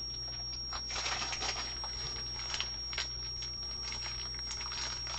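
Light rustling and scattered small clicks of thick plastic card holders being handled and sorted.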